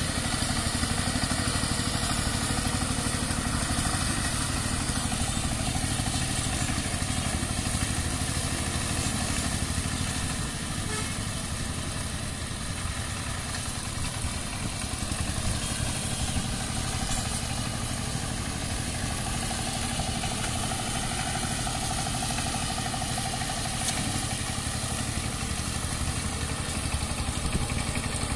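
Single-cylinder diesel engine of a 12 hp two-wheel power tiller running steadily under load while its rotary tiller churns the soil. The sound dips slightly in loudness about halfway through.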